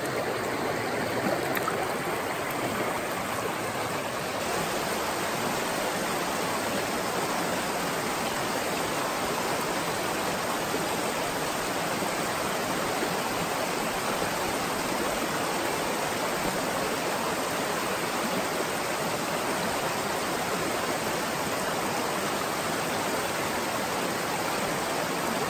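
Small mountain trout stream rushing over rocks and little ledge cascades: a steady, even rush of water. The stream is running high with rain and snowmelt.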